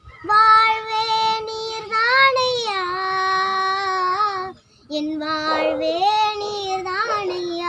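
A young girl singing a Tamil Christian song alone, with no accompaniment, in two long phrases of held, sliding notes separated by a short breath a little past halfway.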